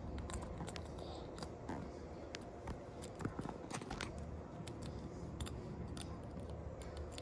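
Plastic parts of a pull-back toy car clicking and rubbing as they are handled and fitted back together: scattered light irregular clicks.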